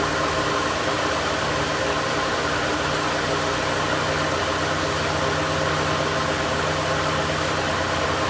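Electric sander running steadily with 120-grit paper on a guitar's wooden body, an even motor hum over the rasp of the paper.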